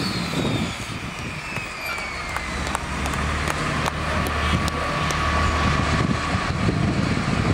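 Dodge Ram pickup's Cummins inline-six turbodiesel coming off the throttle at the end of a sled pull. The turbo's whine falls steadily in pitch over the first couple of seconds, then the engine idles with a low rumble and a steady turbo whistle.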